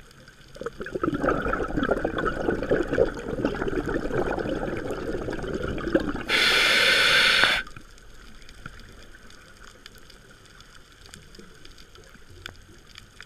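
Scuba diver breathing through a regulator underwater: a long exhale as a stream of bubbling for about five seconds, then a short hiss from the demand valve on the inhale.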